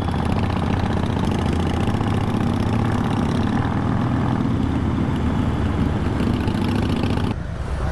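Harley-Davidson Iron 883's air-cooled V-twin engine running steadily at a low, even speed. The higher noise above it drops away about seven seconds in while the engine carries on.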